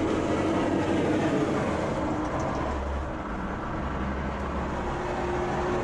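Steady low rumble of a vehicle running, with no distinct events.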